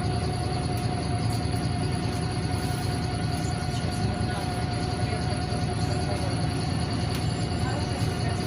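Inside a NefAZ 5299 city bus under way: steady rumble of its Cummins ISBe diesel engine and the road, with a steady whine running through it.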